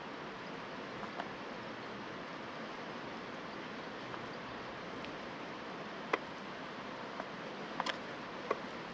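Steady rushing of a fast river, with a few light knocks and clicks of a wooden spoon against the pot and plate as pasta is dished out; the sharpest knock comes about six seconds in.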